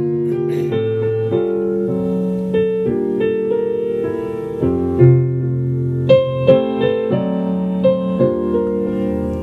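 Music playing from a car stereo at medium volume inside the car: held chords that change every half second to a second.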